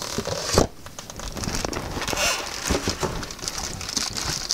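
Plastic bag wrapping crinkling and rustling against the cardboard box as hands grip and lift out a boxed soldering station, with a sharp knock about half a second in.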